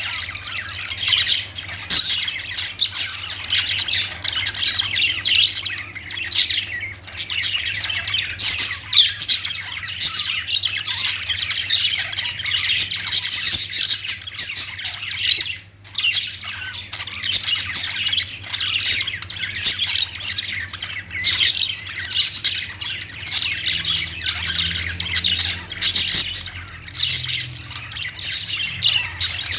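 Pet budgerigars chirping and squawking continuously, many calls overlapping, with a brief lull about halfway through.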